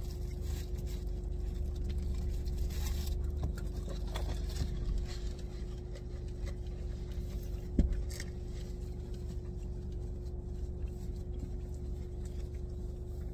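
Steady low hum inside a car's cabin, with light rustling of a burger's paper wrapper and a single thump about eight seconds in.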